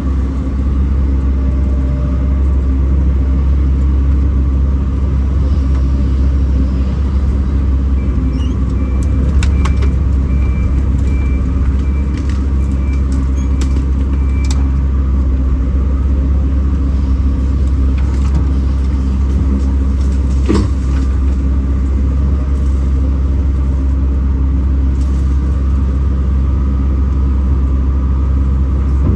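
Kobelco SK210 excavator's diesel engine running steadily at working speed, with a deep, even drone. A few sharp knocks come through about a third of the way in and again past the middle, and a faint broken high tone sounds for several seconds in between.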